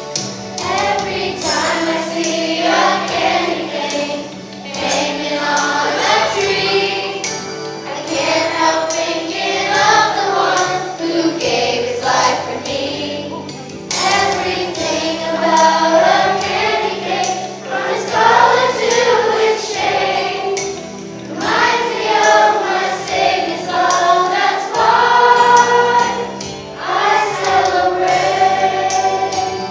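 A children's choir singing a Christmas-play song with instrumental accompaniment, the singing phrases breaking off briefly a few times.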